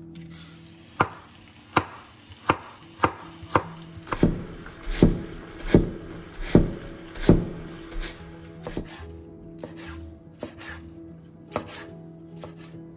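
Chef's knife chopping carrot strips on a wooden cutting board, a sharp cut about every two-thirds of a second, loudest in the middle, then a few lighter, scattered cuts near the end.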